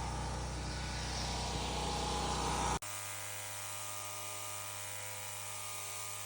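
An engine running steadily with an even hum. About three seconds in it cuts off abruptly to a quieter, different steady hum.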